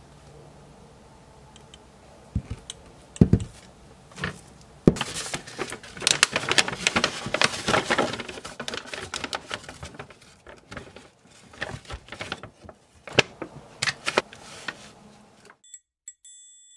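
Kraft paper bag crinkling and crackling as it is handled and its top folded over, with a few knocks of a glass jar being set down. Near the end, after a brief hush, a few short high tinkling chimes.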